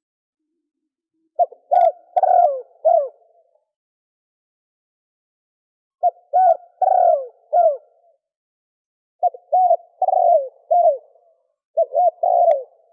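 Spotted dove cooing in four phrases of three to five coos each, with silent gaps of about two seconds between phrases. Each coo is low and ends with a drop in pitch.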